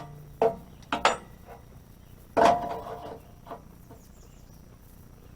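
A few sharp clattering knocks with a brief ring: one about half a second in, two close together about a second in, and the loudest about two and a half seconds in, then faint outdoor background.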